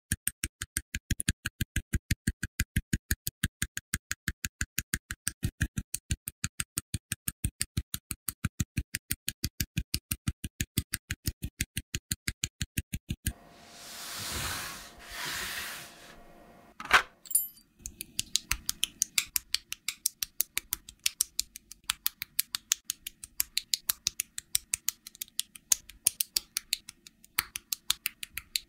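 A fast, even ticking beat, about five ticks a second, for the first half. Then come two hissing swells about a second long each, one sharp click, and a looser run of clicks.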